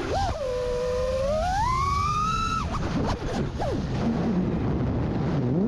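Motors and props of a 5-inch FPV freestyle quadcopter (EMAX Eco II 2306 1700kv motors on 6S, Ethix P3 props) whining under throttle, over a low rushing noise. The whine holds, then climbs steeply in pitch and cuts off abruptly about two and a half seconds in as the throttle is chopped. It wavers low and unsteady for a few seconds, then rises again near the end.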